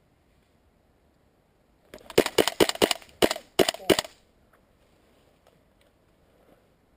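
Gas-blowback airsoft rifle, a WE SCAR-L, firing about eight quick semi-automatic shots over two seconds in two short strings, each shot a sharp clack of the bolt cycling.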